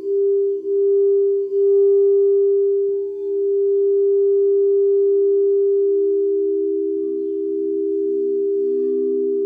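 Several sound bowls ringing together in steady, overlapping tones that waver in a slow pulse. A fresh bowl comes in about three seconds in and a lower one about seven seconds in, adding its own pulsing hum.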